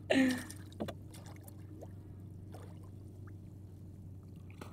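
Water sloshing gently against an outrigger boat's hull, with small splashes from snorkelers swimming beside it and a steady low hum underneath. A brief voice-like call comes at the very start.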